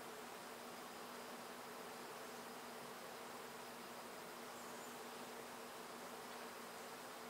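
A steady, faint buzzing hum under a low hiss, unchanging throughout, with no separate clicks or splashes.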